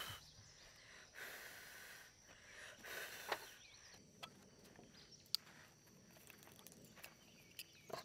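Near silence: faint rustling and a few sharp light clicks over a faint steady high tone.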